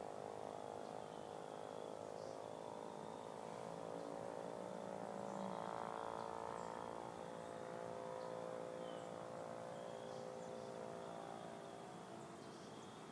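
A steady droning hum with many overtones, swelling slightly about halfway through, with faint high chirping over it.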